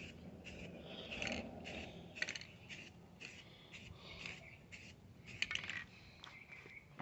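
Rust-Oleum aerosol spray-paint can hissing in short, faint bursts, roughly one or two a second, as light passes of paint are sprayed.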